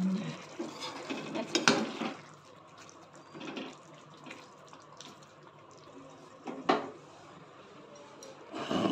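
Perforated metal spoon stirring thick soya curry in a metal kadhai: wet sloshing of the gravy with a few sharp clinks of spoon against pan.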